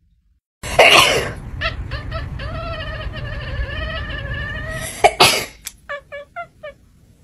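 Domestic cat vocalizing: a loud harsh burst, then one long wavering yowl of about three and a half seconds, another harsh burst, and a quick run of about five short chirping meows.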